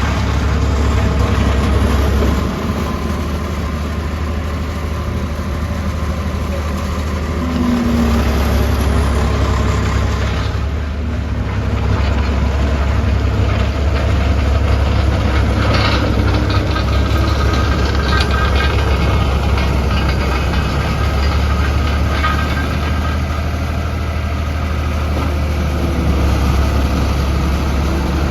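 New Holland LT185B skid steer loader's diesel engine running steadily. Its level drops a few seconds in and comes back up about eight seconds in.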